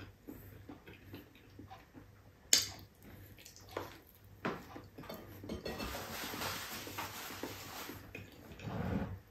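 Close-up eating sounds: a man biting and chewing a banana, with small mouth clicks and one sharp click about two and a half seconds in. Paper napkins rustle for about two seconds near the end.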